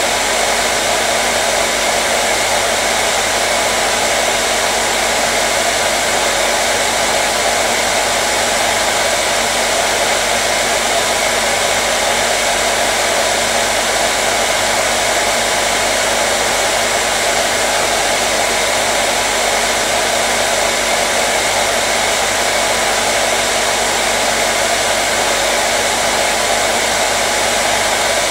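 Hair dryer blowing steadily, an even rushing of air over a constant motor hum, with no change in speed.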